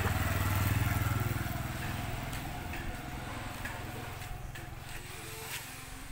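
A vehicle engine running with a low hum, loudest about a second in and then slowly fading.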